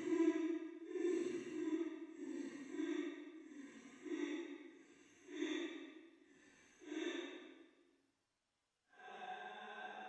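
A woman's voice weeping in a run of breathy sobs, about one a second, growing fainter until it stops about eight seconds in. After a moment's silence a steady tone starts near the end.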